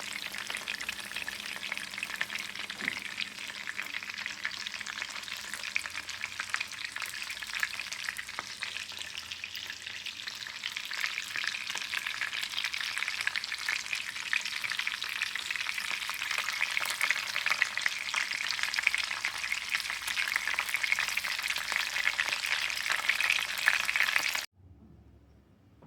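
Food frying in hot oil, a dense, steady crackling sizzle that cuts off abruptly near the end.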